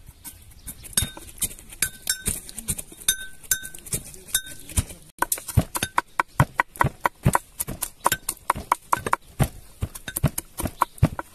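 A knife chopping fresh herbs and garlic on a wooden cutting board, in quick knocks. For the first five seconds, a pestle pounding in a small metal mortar clinks in among the chops, each strike giving a short metallic ring. After that the chopping alone goes on faster, about four to five chops a second.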